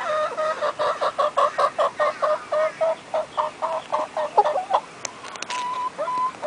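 Barred Rock hen clucking in a fast, even run of about four or five clucks a second, the cackle a hen gives after laying an egg, then slowing to a few softer single notes near the end. A few sharp clicks about five seconds in.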